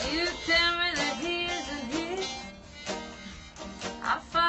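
Live acoustic jam of a country song: a tenor guitar strummed steadily, with a held, sliding melody line over it for the first couple of seconds and again near the end.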